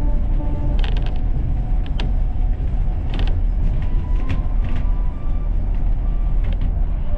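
Kanazawa Seaside Line rubber-tyred automated train running along its elevated guideway: a steady low rumble with irregular creaks and sharp clicks every second or so.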